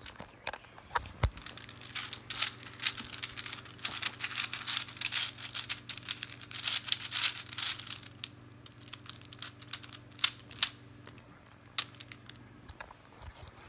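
Plastic Meffert's Gear Ball puzzle being twisted rapidly to scramble it, its gears and pieces clicking and clattering, densely for the first several seconds and then in sparser clicks.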